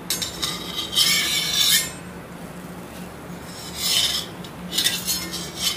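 Scraping on a hot iron tawa as an onion paratha is dry-roasted, in two main strokes about a second in and about four seconds in, with a shorter one near the end.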